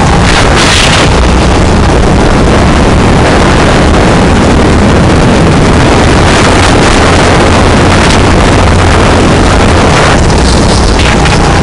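Go-kart engine running at speed with wind rushing over an onboard camera microphone, loud, steady and overloaded.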